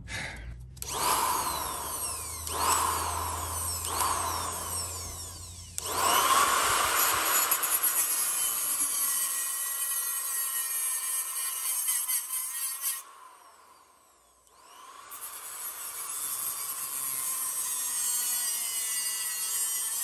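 Small electric angle grinder with a cut-off wheel cutting into a brass lock plate held in a vise. The motor is run in several short bursts at first, then a long steady cut. It spins down to a stop about two-thirds of the way through and starts again for a second cut near the end.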